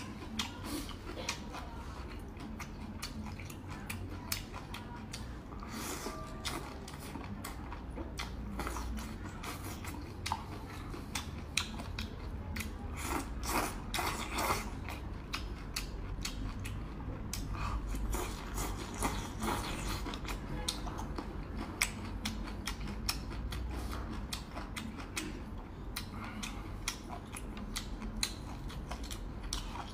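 Close-up mukbang eating sounds: chewing and slurping of noodles and spicy maocai, with many small wet clicks. A denser run of noodle slurping comes about halfway through.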